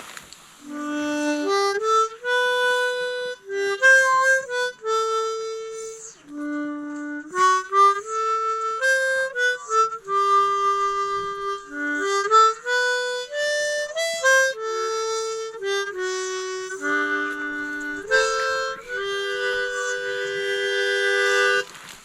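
Harmonica (mouth organ) playing a slow tune of held notes and short stepwise runs, with brief breaths between phrases, ending on a long two-note chord.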